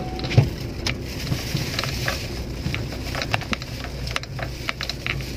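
Steady low hum of a car heard from inside the cabin, with scattered light clicks and rattles.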